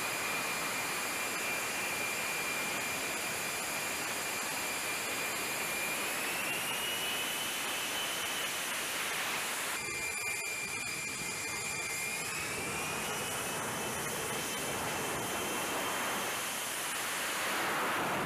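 F-35B's Pratt & Whitney F135 jet engine running at high power, a steady high whine over loud jet rush. The whine rises in pitch as the engine spools up, drops back abruptly about ten seconds in, then rises again. A broader rush builds near the end as the jet takes off.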